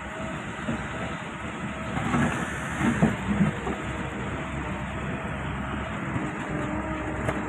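Hitachi ZX excavator running steadily while trenching, with a few louder bursts about two to three and a half seconds in.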